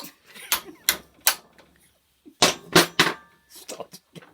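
A large hammer striking metal, driving the pin into a stainless steel door hinge held in a vise. There are sharp blows, three, then about a second's pause, then three more.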